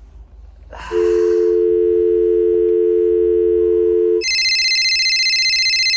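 Telephone call tones: a steady two-note dial tone for about three seconds, then a higher-pitched steady tone for the last two seconds.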